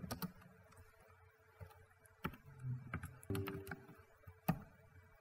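Computer keyboard keystrokes typing a short terminal command: irregular, spaced-out key clicks, a few of them sharper than the rest.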